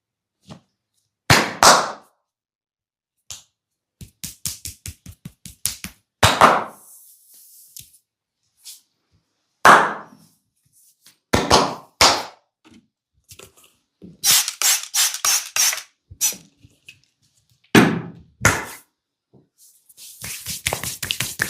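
Hands striking the head and shoulders during a barber's percussive massage: single loud slaps and quick runs of tapping strikes, about six a second. Near the end it turns into a dense, rapid scratching rustle.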